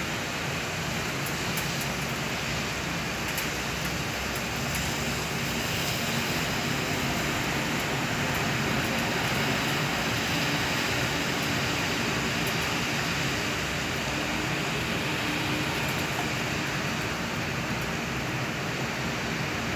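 Heavy rain falling steadily onto a wet paved street, a dense even hiss that swells a little midway, with faint scattered drip ticks.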